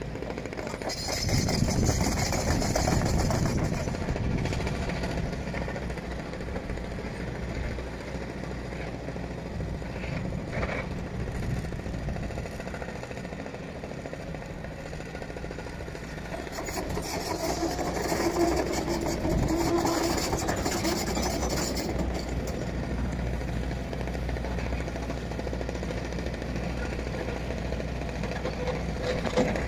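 Construction machinery engine running steadily, growing louder twice, about a second in and again around halfway, with a hiss during each louder spell.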